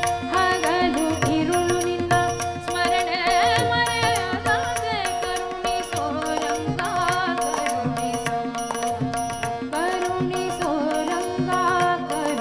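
Hindustani classical vocal music: a woman's voice singing ornamented, gliding phrases with fast wavering runs, over a steady tanpura drone, with harmonium accompaniment and tabla keeping an even beat.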